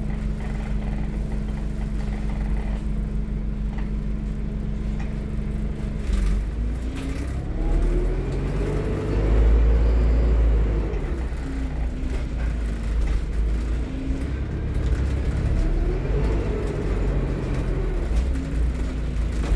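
Diesel engine of an Alexander Dennis Enviro400 MMC double-decker bus, heard loud from inside the passenger saloon. It idles steadily, then about six seconds in the bus pulls away: the engine note climbs, drops back as the gearbox changes up, and climbs again.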